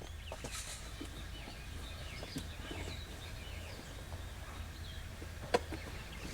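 Birds chirping faintly over a steady low rumble, with a few light clicks and one sharper click or knock about five and a half seconds in.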